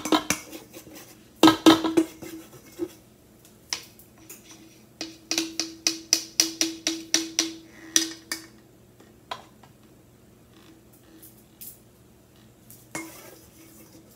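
Wire whisk clinking and knocking against a stainless steel mixing bowl as batter is stirred. The clicks come in a quick regular run of about three a second for a few seconds midway, with a few louder knocks near the start. The bowl rings faintly under the strokes.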